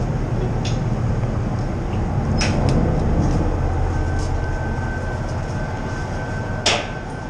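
A large steel powder-coating oven door being swung open on its caster wheel, with several metallic clanks and knocks. The loudest knock comes near the end. A steady low rumble runs underneath.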